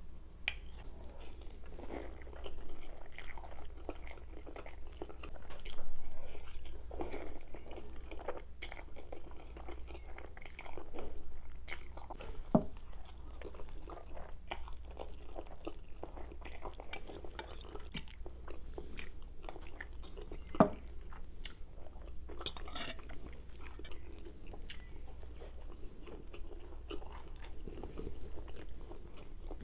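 Close-up eating sounds: chewing and sucking in mouthfuls of spaghetti, with moist crackles throughout. Now and then a metal fork clinks sharply against the glass serving bowl, most clearly twice.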